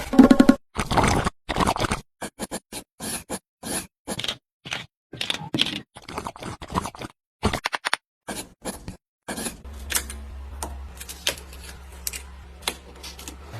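A run of short, separate scrapes and clicks, like small materials being scraped and set down in miniature building work, with clean silent gaps between them. About two-thirds of the way in a steady low hum starts and runs under further scrapes and ticks.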